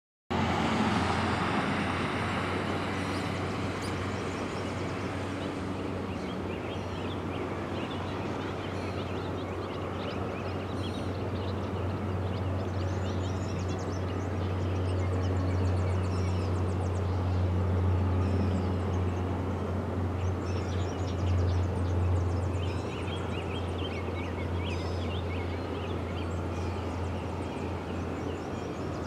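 Small birds chirping again and again over a steady low drone that swells a little midway.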